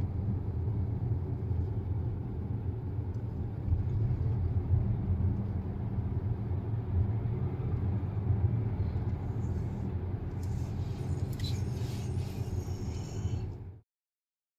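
A car driving along: a steady low rumble of road and engine noise, with a few faint clicks near the end. It cuts off suddenly shortly before the end.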